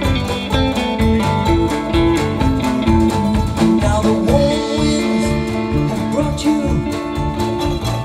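Live acoustic folk band playing the song, with guitar and other plucked strings over a steady beat.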